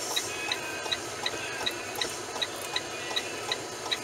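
Semi-truck turn-signal flasher clicking inside the cab, an even tick about three times a second.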